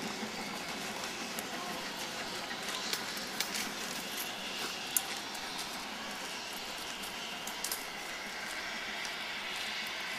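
A steam-hauled passenger train pulling away, giving a steady noise with a few short, sharp clicks.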